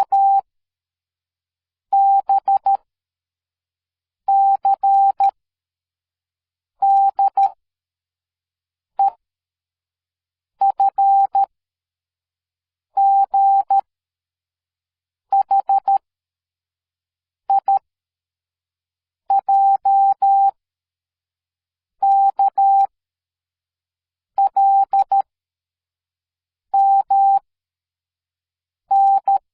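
Morse code sent as a single steady beep tone keyed on and off in short and long elements. The tone comes in separate groups of dots and dashes, one character about every two seconds, with silence between the groups.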